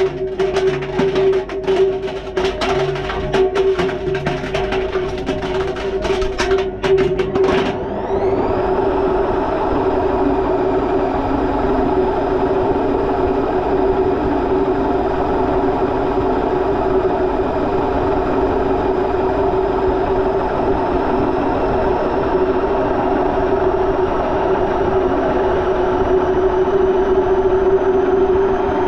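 Indesit washing machine heard from inside its drum: for about the first eight seconds loose items tumble, giving rapid clicks and knocks against the perforated steel drum. The knocking then stops suddenly as the drum speeds up into its spin and the items are pinned to the wall, leaving a steady motor run with a high whine slowly rising in pitch.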